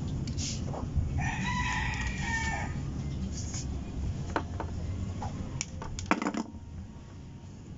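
A rooster crows once, about a second in, over a steady low rumble. Near the end come a few sharp clicks from pliers and wires being handled.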